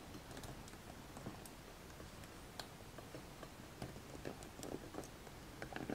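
Faint, irregular clicks and taps of a plastic phone-mount clamp and a smartphone being handled and fitted into it.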